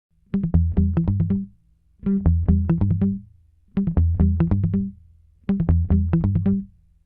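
Background music: a short phrase of quick repeated notes over a heavy bass, played four times with brief silences between.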